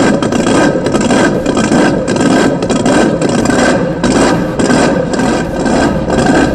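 A loud, rough engine idle with a slightly uneven pulse, running steadily. It starts abruptly as the music cuts off.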